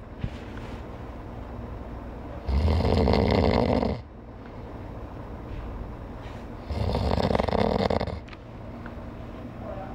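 A man snoring loudly in his sleep: two long snores about four seconds apart, each lasting about a second and a half, with quieter breathing between them.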